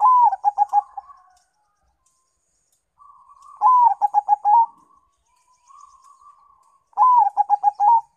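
Zebra dove (perkutut), a Bangkok–local crossbreed, cooing its song three times. Each phrase is a short opening note followed by a quick rolling run of about six to seven coos, with soft murmured notes between the phrases.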